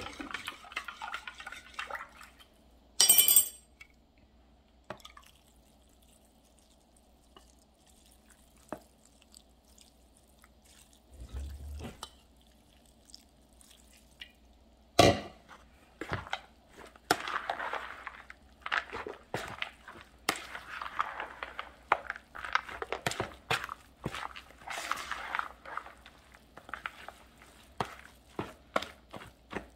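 Chicken broth poured into a bowl of crumbled cornbread dressing, then a metal spoon stirring the soaked crumbs. There is a sharp knock about halfway through, and after it a run of uneven wet scraping strokes until the end.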